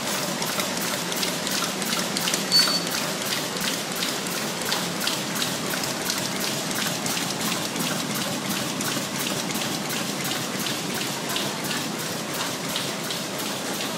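High-speed box overwrapping machine running, wrapping boxes in cellophane (BOPP film): a steady mechanical clatter of rapid, regular clicks, with one louder clack about two and a half seconds in.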